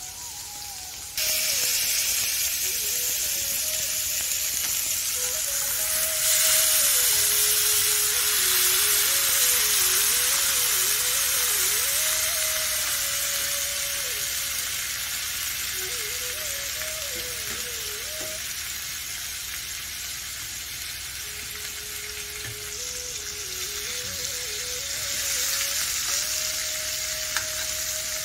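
Gravy-coated fish pieces sizzling as they shallow-fry in oil in a stainless steel frying pan. The sizzle gets suddenly louder about a second in and again around six seconds, then eases off gradually.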